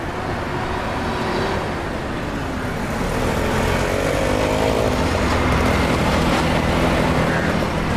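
City street traffic with a motor vehicle's engine running close by, growing louder about three seconds in and staying loud.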